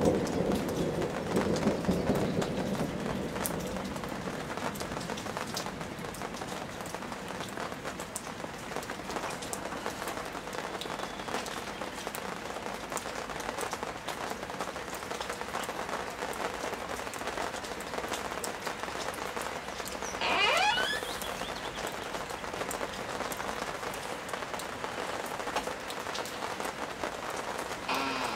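Steady rain during a thunderstorm, with the rumble of thunder dying away over the first few seconds. A bird gives one short call about two-thirds of the way through.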